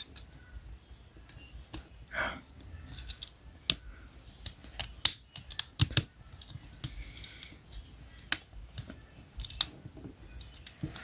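Irregular plastic clicks and clacks of a Transformers action figure's joints and parts being turned and snapped into place by hand during its transformation.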